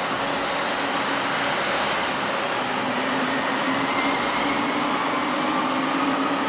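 An articulated electric tram running past on street rails, a steady rumble of wheels on track with a faint rising whine in the second half.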